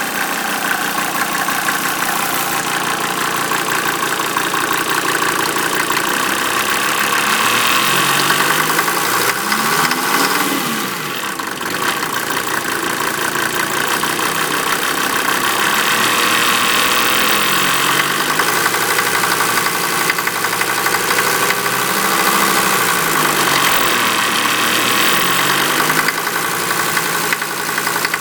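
1988 Mercedes 190D diesel engine running on waste vegetable oil, with a loud clanging noise throughout that the owner cannot identify and wonders whether it is normal.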